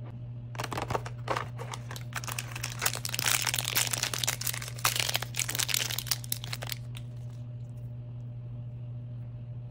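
Foil blind-bag packet crinkling as it is torn open by hand, a dense run of crackles and crinkles that stops about seven seconds in. A steady low hum runs underneath.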